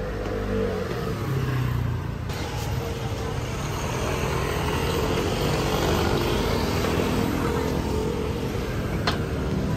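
Steady city street traffic noise with soft background music over it.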